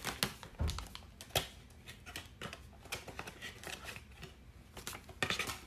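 Cardboard candle box being slid out of its printed paper sleeve: light rustles, scrapes and small taps of card and paper, with a busier patch of rustling near the end.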